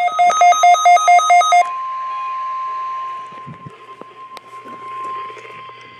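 Emergency alert tones over weather radio: rapid electronic beeping, about seven beeps a second, gives way about one and a half seconds in to a single steady weather-radio alert tone. The tone drops in level about three seconds in and carries on faintly over radio hiss, signalling the start of a tornado warning drill broadcast.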